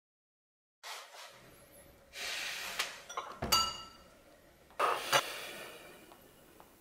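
Silence for about the first second, then the quiet sound of a small room with a couple of breathy sighs and a short, light clink with a brief ring about three and a half seconds in.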